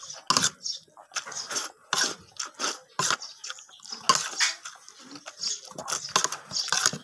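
Close-up wet chewing and lip-smacking of a mouthful of rice, a quick irregular run of smacks and clicks.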